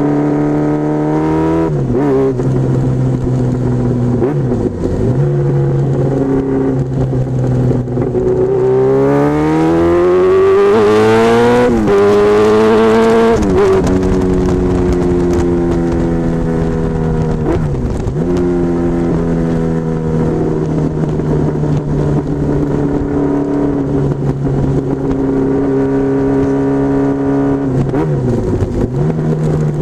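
Honda CBR1000F Hurricane's inline-four engine under way, heard from the tail of the bike. The engine note rises with the throttle and drops back several times. It makes one long, hard climb about nine to twelve seconds in, the loudest part, then settles into steadier running.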